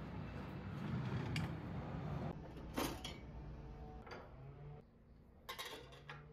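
Rustling, then a few light clicks and knocks as small household items are handled and set down.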